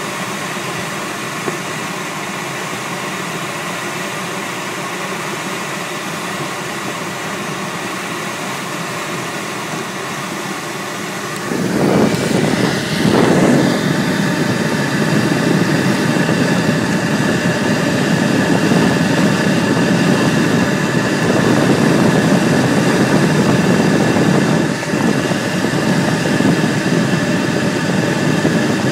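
Steady rush of air over a glider's canopy in flight, heard from inside the cockpit, with faint steady whistling tones. About twelve seconds in the rush turns louder and deeper and stays so.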